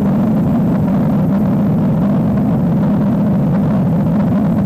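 Steady, loud, low drone of a twin-turbine Puma helicopter's rotor and engines in cruise flight, heard from aboard the aircraft.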